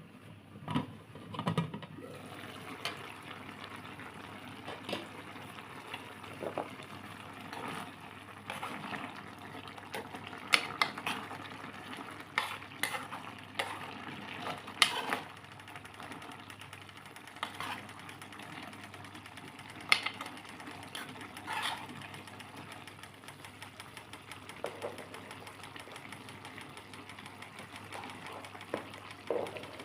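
Chicken cooking in a pan with a steady hiss and crackle over a low hum, with scattered taps and scrapes of a utensil against the pan, the sharpest about 10, 15 and 20 seconds in.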